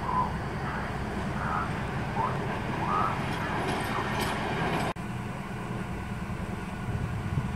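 Low, steady engine rumble of a rail maintenance vehicle moving along the track, with short faint chirps above it. The sound cuts off sharply about five seconds in and a similar low rail-vehicle rumble takes over.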